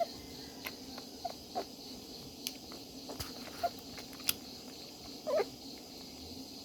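Newborn puppies squeaking: a few short, faint squeaks, and a slightly longer one about five seconds in, along with a few sharp clicks.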